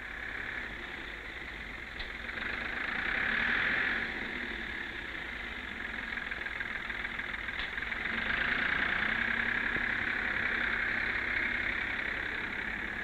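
Ford Major 4000 tractor engine running while the tractor works with a front-end loader; the engine note swells louder about two seconds in and again from about eight seconds.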